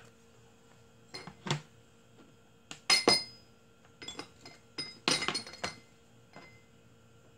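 Small ceramic ramekins and glass kitchen containers clinking as they are handled and set down: several separate clinks, each with a short ring. The loudest come about three seconds in and in a quick cluster about five seconds in.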